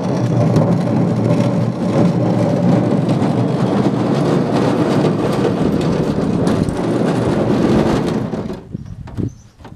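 Wind buffeting the microphone as a steady rushing noise, easing off near the end, when a few faint knocks come through.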